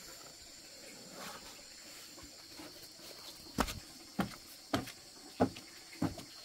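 Five sharp knocks, a little under two a second, starting about halfway through, over a steady high-pitched drone.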